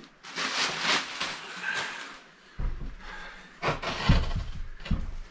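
Clear plastic wrapping rustling and crinkling as it is pulled off, then a few dull thumps in the second half as the heavy inverter is handled and set down on the wooden floor.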